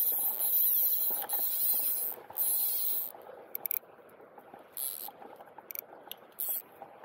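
Fly reel's click-and-pawl ratchet buzzing as line runs on and off the spool: a continuous buzz for about three seconds, then several short bursts.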